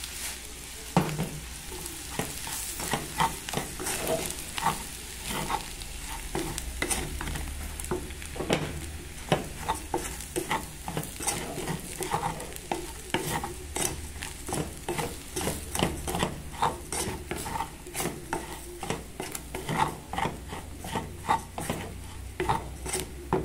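Wooden spoon stirring manioc flour into fried sausage and onion in a metal pan to make farofa, with repeated scrapes and knocks against the pan over a light sizzle of frying.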